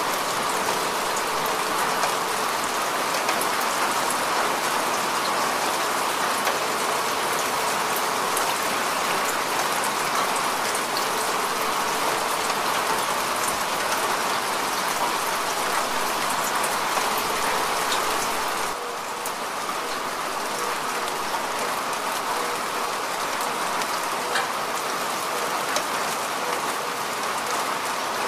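Steady heavy rain falling, an even hiss with scattered sharp ticks of single drops. It gets slightly quieter about two-thirds of the way through.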